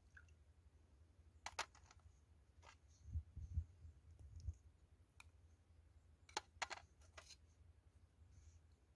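Small china bowls clinking lightly against a glass bowl and a steel tray as sauces are tipped out and the bowls are set down: a few sharp clicks, with a cluster of them about six to seven seconds in and soft low bumps a little before the middle. All of it faint.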